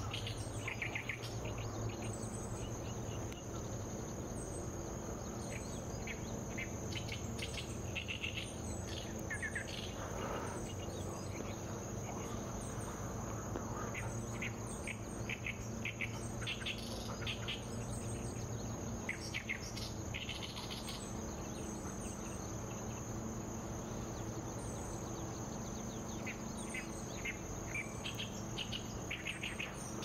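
Insects trilling steadily at a high pitch, with a very high chirp repeating about once a second. Short bird calls come in scattered bunches through it.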